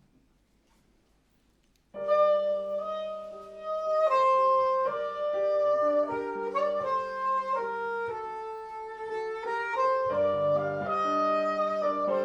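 Jazz quartet starting a slow piece: the saxophone plays a melody over sustained piano chords, beginning suddenly about two seconds in after a near-silent pause. Low bass notes join near the end.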